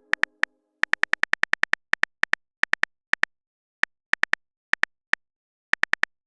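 Phone-keyboard typing sound effect: a series of short, identical high clicks at an uneven pace, coming in quick runs with brief pauses.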